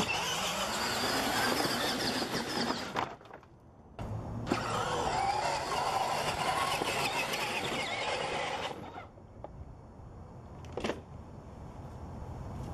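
Small electric motor of a blue toy vehicle whining as it drives over loose dirt, in two runs of a few seconds each with a short gap between, its pitch rising as it starts off. A single sharp knock comes near the end.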